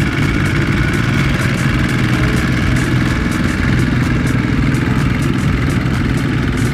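Two-wheel tractor's single-cylinder diesel engine running steadily under load as it hauls a trailer loaded with sacks of rice through a wet rice field.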